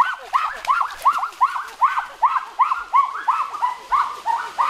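An animal calling in a fast, even series of short rising-and-falling calls, about three a second.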